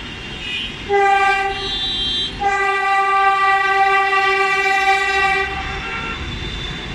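Kolkata East West Metro train sounding its horn twice: a short blast about a second in, then, after a brief break, a longer blast of about three seconds, over the rumble of the train running on the elevated track.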